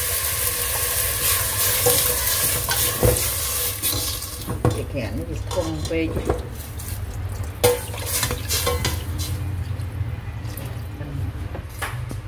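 Water poured from a plastic bottle into a stainless-steel soup pot, a pouring noise that fades after about four seconds, while a metal ladle stirs the broth and knocks against the pot several times.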